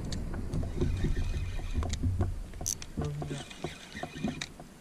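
Fishing reel being wound in while a hooked fish is played, its crank and gears ticking in quick small clicks. Under it runs a low rumble that eases after about three seconds.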